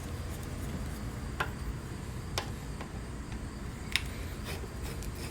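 A Phillips screwdriver loosening hose clamp screws on a motorcycle carburetor's rubber intake hose: three light, sharp clicks a second or so apart, over a steady low background noise.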